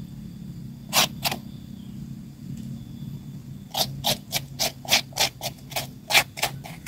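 Young papaya being shredded with a hand scraper: short, sharp scraping strokes, two about a second in, then a quick run of about three a second through the second half.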